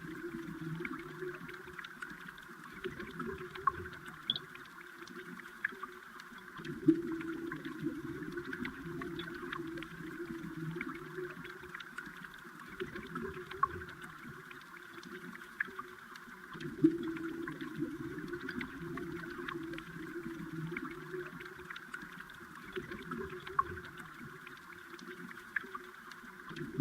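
Underwater recording of flowing river water: a steady rushing hum that swells and eases every several seconds, with scattered sharp little ticks.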